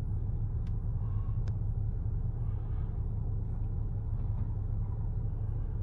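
Low, steady rumble inside a car's cabin while the car sits stopped in traffic with its engine idling.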